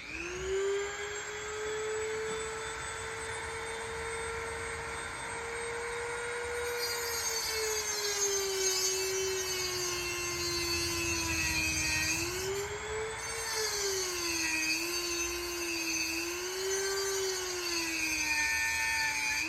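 Dremel rotary tool switching on with a high whine and cutting a notch to clear a wiring bundle. From about a third of the way in a harsher cutting noise joins, and the motor's pitch sags and wavers up and down as the tool is pressed into the cut.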